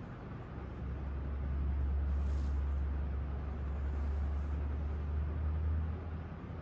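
A low, steady mechanical rumble that swells about a second in and eases off near the end.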